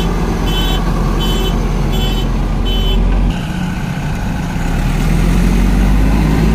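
Diesel engine of a JCB 3DX backhoe loader running, with its reversing alarm beeping about every 0.7 seconds. A little past three seconds in, the beeping stops with an abrupt change in the sound, and steady diesel engine rumble carries on.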